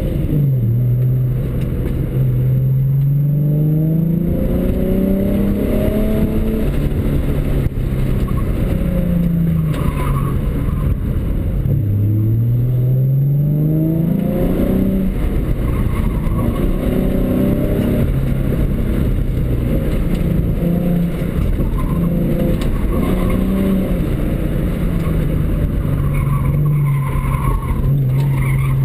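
2007 Ford Mustang's 4.0 V6 with an axleback exhaust and cold air intake, heard from inside the cabin, driven hard. The engine note climbs under acceleration, drops suddenly at gear changes and when lifting off, then climbs again, with a long rising pull about twelve seconds in.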